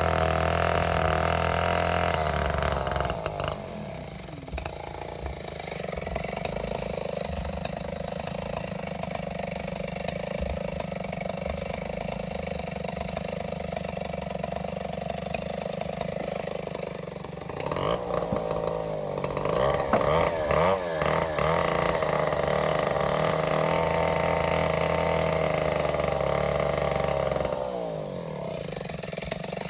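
A small petrol engine running: loud for the first few seconds, quieter through the middle, then loud again for about ten seconds with a wavering, rising-and-falling pitch.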